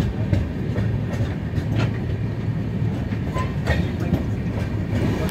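Passenger express train running along the track: a steady low rumble of wheels on rails, with a few sharp clicks scattered through it.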